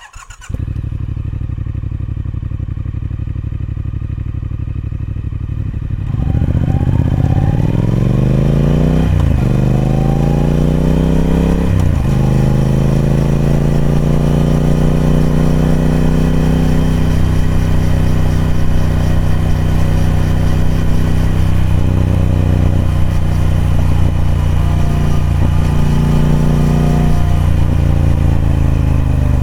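Triumph Speed Twin 1200's parallel-twin engine on its stock exhaust. It holds a low, steady note, then gets louder about six seconds in as the revs climb, with two quick gear changes near nine and twelve seconds. After that it settles into a steady cruising note.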